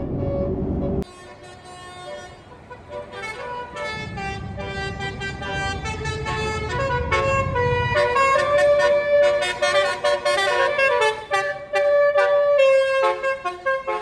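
A bus's Basuri 'telolet' musical air horn playing a melody: a run of notes stepping up and down in pitch, louder from about halfway through. A low rumble sits under it for a few seconds in the middle.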